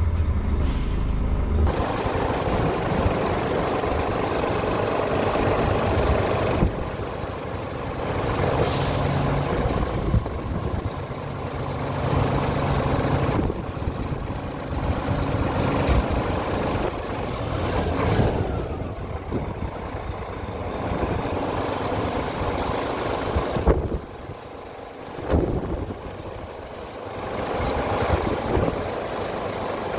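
Scania P tipper truck's diesel engine running, its revs dropping about two seconds in, while the hydraulic tipper body is lowered. There are short bursts of compressed-air hiss about a second in and again about nine seconds in.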